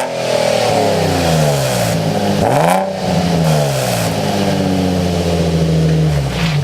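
Nissan 350Z's 3.5-litre V6 revved through a freshly fitted exhaust: revs fall from a blip, rise to a second blip about two and a half seconds in, then settle and hold steady.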